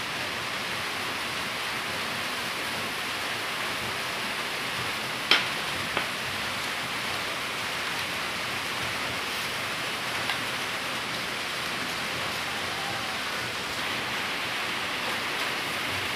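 Steady, even rushing hiss, rain-like, with two sharp clicks about five and six seconds in.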